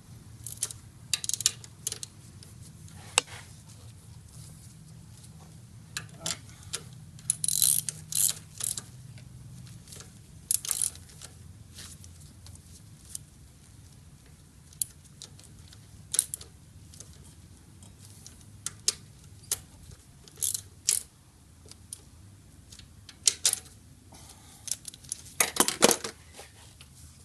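Hand socket ratchet clicking in short runs as the intercooler bracket bolts are tightened, with metal tool clinks in between. There is a louder clatter of metal near the end.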